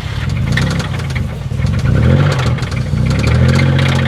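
Infiniti G35's VQ-series V6, which has a rod knock, revving up and down under throttle, then holding a steady speed from about three seconds in, with a fast clatter over the engine note. It sounds so bad.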